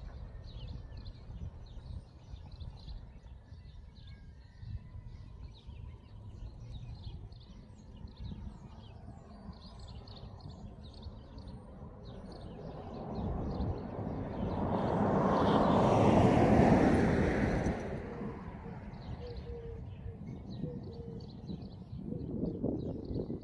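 Outdoor ambience of small birds chirping over a low rumble of wind, with a vehicle driving past that swells up and fades away about two-thirds of the way through.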